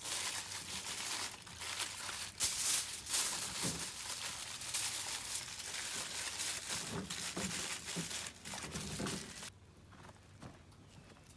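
Aluminium foil crinkling and rustling as it is handled, a dense run of crackles that stops abruptly near the end.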